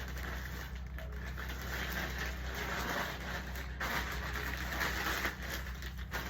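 Soft, continuous rustling and crackling of plastic packaging being handled.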